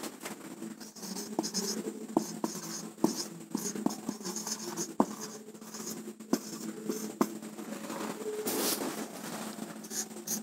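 Marker pen writing on a whiteboard: the tip scratches and rubs through short handwritten strokes, with several sharp little taps as it meets the board and one longer, louder stroke near the end.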